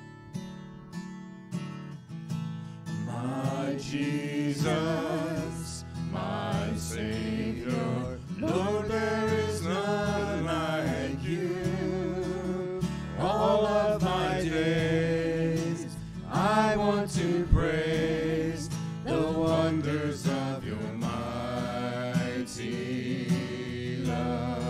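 Worship song played by a small church band: acoustic guitar, with voices coming in singing about three seconds in and carrying on.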